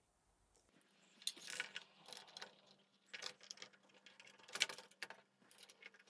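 A small screwdriver turning screws part way into a keyboard's circuit-board assembly, with handling of the board: faint scratchy clicking in four short bursts about a second apart, after a quiet first second.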